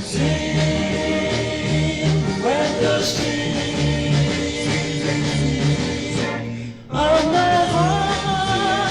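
A 1961 vocal-group rock and roll record, with group singing over a repeating bass line and guitar. The music breaks off for a moment about seven seconds in, then comes straight back.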